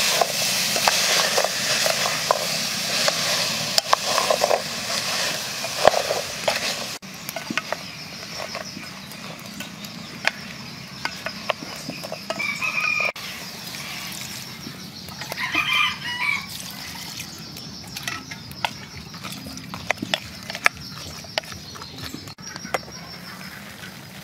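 Vegetables sizzling in an aluminium pot as a wooden spatula stirs them, loud for about the first seven seconds. It then drops abruptly to a quieter simmer with scattered clicks of the spatula against the pot. Two short animal calls come in the middle.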